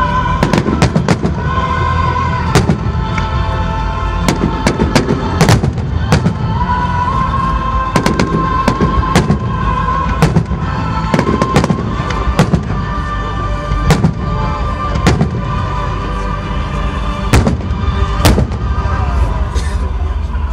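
Fireworks exploding, with sharp bangs every second or so at irregular intervals, over music playing with the show.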